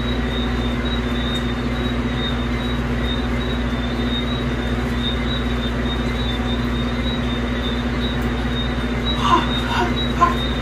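Microwave oven running with a steady hum, with a few light clicks near the end.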